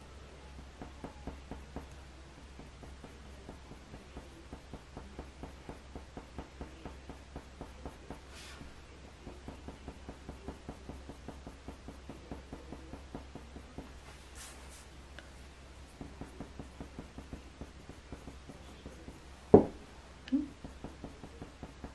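Coloured pencil scratching across hot-press watercolour paper in quick, short flicking strokes, about four a second, in runs with brief pauses, as fine fur hairs are drawn. A sharp knock about three-quarters of the way through, with a softer one just after.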